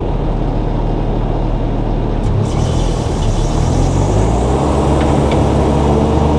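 Diesel engine of a Bobcat T650 compact track loader running steadily, its note shifting slightly about two seconds in.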